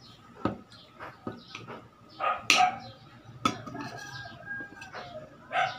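Metal spoon clicking and scraping against a bowl during eating, several sharp clicks with the loudest two about a second apart midway. Short animal calls, like a chicken clucking, come in between.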